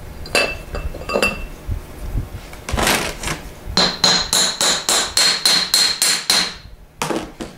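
Hammer tapping the back plate of a Delco Remy 42MT starter down onto its roll pins: a few separate knocks, then a quick run of about four ringing metallic taps a second, and two more near the end.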